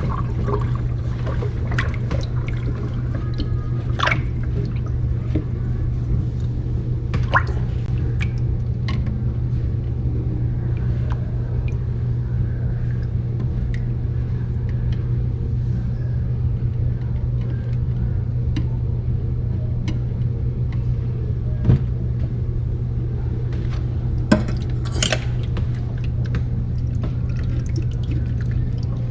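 Tap water running steadily into a sink, with a few sharp clicks and knocks now and then.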